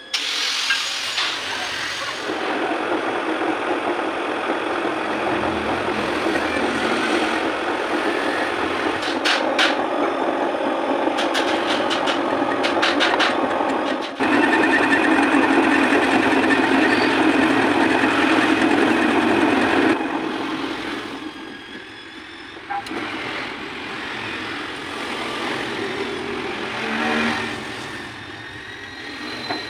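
Metal lathe running with an off-centre cast bracket spinning in a four-jaw chuck while a boring bar cuts its bore. The sound steps up louder about halfway through, then drops to a quieter hum for the last third.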